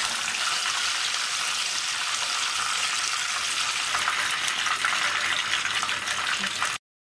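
Hot cooking oil sizzling steadily in a frying pan, an even hiss that cuts off abruptly near the end.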